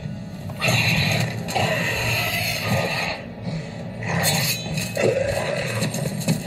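An undead wight (a zombie creature) snarling and shrieking several times as it lunges. This is a TV drama's soundtrack, heard through a speaker and recorded off the screen.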